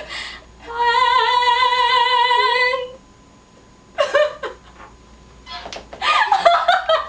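A woman's voice holding one long sung note with vibrato for about two seconds, unaccompanied. Short bursts of voice follow after a pause, near the end.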